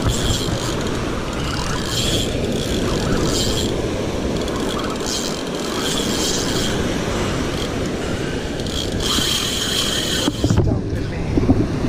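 Fishing reel with a loose drag giving line in short buzzing bursts, about seven times, as a fish takes the bait. Under it runs a steady rush of wind and surf.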